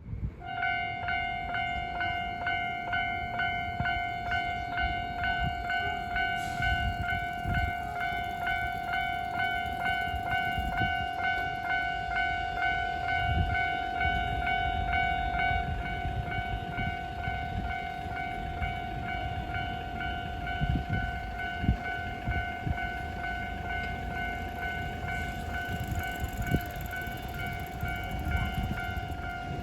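Electronic warning bell of a Japanese railway level crossing ringing in a rapid, even, repeating pattern, signalling that a train is approaching. Low rumbling runs underneath.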